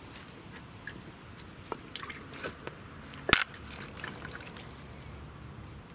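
Spinning rod and reel handled during a cast: scattered light ticks and one sharp click a little over three seconds in, over a faint steady background.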